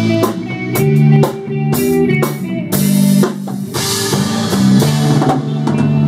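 Rock band instrumental intro: drum kit keeping a steady beat under guitar chords, with a cymbal crash about four seconds in.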